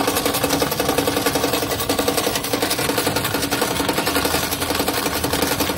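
Arcade token dispenser paying out: a fast, even stream of tokens clattering into a plastic bowl held under the chute, over the steady hum of the dispensing mechanism.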